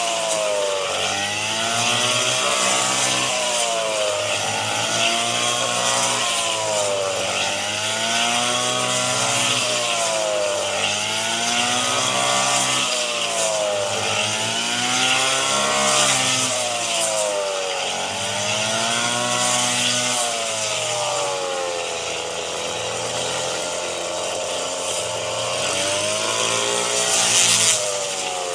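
A rice-harvesting machine's engine running hard, its pitch rising and falling in a regular cycle about every two seconds, with a steady hiss over it.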